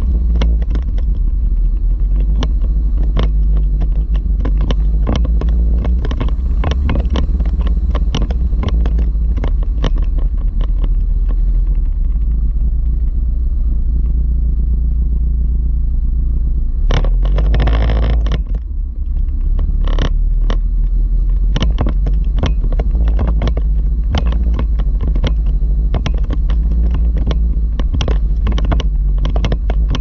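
4x4 Jeep descending a steep, rough dirt track: a constant heavy low rumble with frequent knocks and rattles as it jolts over stones and ruts. Just past halfway a louder rushing scrape lasts about a second and a half.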